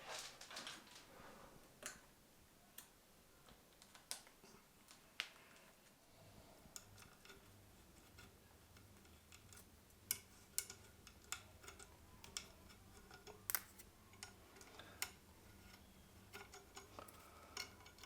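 Scattered small clicks and taps of parts and tools being handled while an electric scooter is assembled, coming more often from about ten seconds in. A faint low hum sets in about six seconds in.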